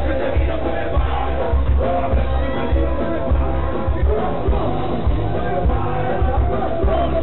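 Loud music with a heavy, steady bass beat, with crowd voices and shouts over it.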